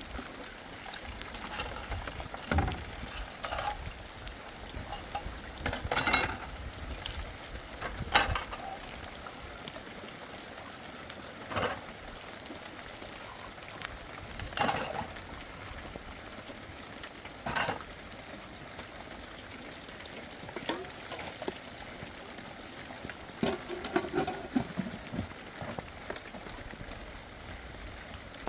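Steady hiss of falling rain, with knocks and clatters every few seconds; the loudest come about six and eight seconds in.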